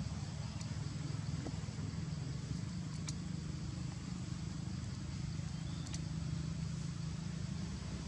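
Steady low background rumble with a thin, steady high tone above it and a few faint clicks.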